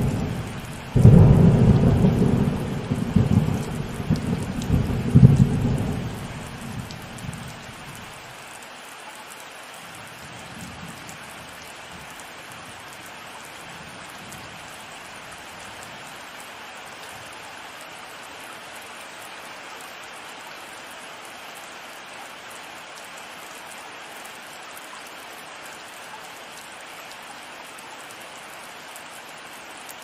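Thunderstorm: a loud thunderclap breaks about a second in and rumbles on in several swells before dying away after about seven seconds, over the steady hiss of heavy rain. A couple of faint, distant rumbles follow, and then only the even rain remains.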